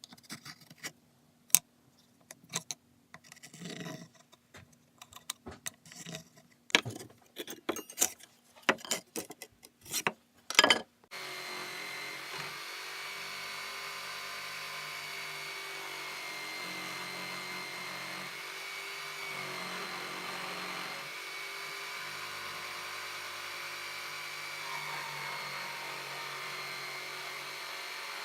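Scattered clicks and knocks of tools and wood being handled, then about 11 seconds in a small power tool starts and runs steadily with a high-pitched whine.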